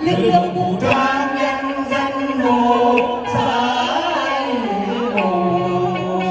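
Singers performing a Vietnamese folk song (dân ca) medley through a stage sound system, with long held notes, one sliding down in pitch about four seconds in.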